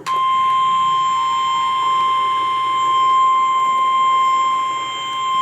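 NOAA Weather Radio warning alarm tone: a single steady, high-pitched 1050 Hz tone that starts abruptly and holds unbroken. It is the attention signal that announces an incoming weather warning.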